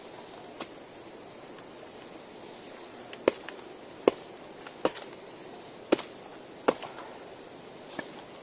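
Five sharp knocks, roughly one every second in the middle stretch, over a steady hiss of light drizzle.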